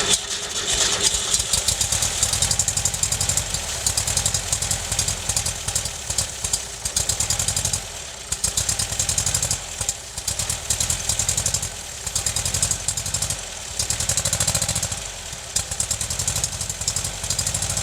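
1974 air-cooled VW flat-four engine running with new rings and freshly rebuilt heads. It is revved up and let drop back over and over, about every two seconds.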